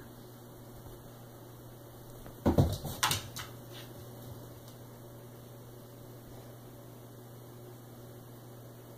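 A brief cat commotion about two and a half seconds in: a deep thump followed by a quick flurry of sharp scuffs as the cat bolts off the bed onto the wooden floor. A steady electrical hum runs underneath.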